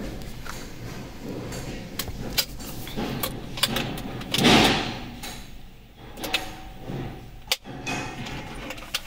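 Hands handling a plastic megaphone and its battery holder: a series of sharp plastic clicks and knocks, with one louder brush of noise about halfway through.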